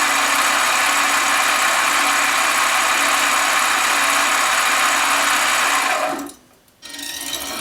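Harbor Freight 7x10 mini lathe running steadily with aluminium tubing spinning in its chuck, with a constant motor whine; the sound cuts off suddenly about six seconds in.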